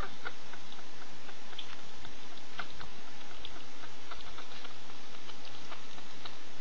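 Chihuahua mother licking her newborn pups as they nurse, a run of small irregular wet clicks and smacks.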